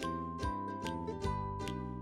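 Light, cheerful background music with plucked notes on a steady beat, about two or three notes a second.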